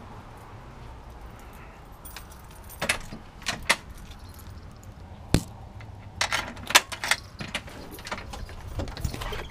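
Keys jangling and a series of sharp metallic clicks and rattles as a storm door's lever handle and latch are worked and the door is pulled open, busiest about two-thirds of the way through.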